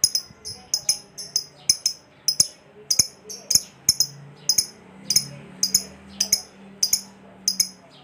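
Fischer's lovebird in a long 'ngekek' run: an unbroken string of sharp, high-pitched chirps, about three or four a second, the extended chattering song that keepers call 'ngekek panjang'.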